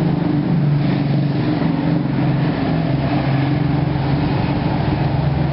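Engine running steadily at a low, even pitch.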